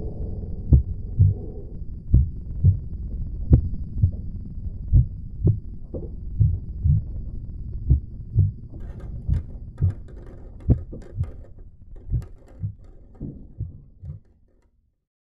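Heartbeat sound effect: deep thumps in lub-dub pairs at a steady pace, slowly fading away and stopping near the end.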